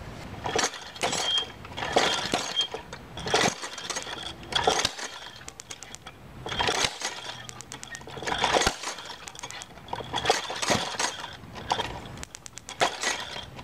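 Homemade hardware-store four-stroke engine being turned over by hand. Its copper-pipe piston, connecting rod, flywheel and pipe-fitting valves make metallic clanks, clicks and rattles in repeated bursts every couple of seconds, with a short high squeak in several of them. The engine is not firing and running on its own.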